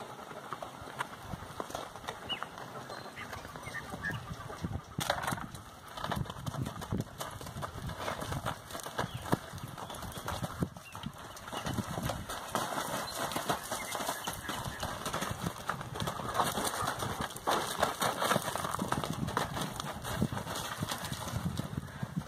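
Hooves of a ridden marchador horse thudding and scuffing on stony dirt as it moves quickly about a corral, in a dense, irregular run of strikes.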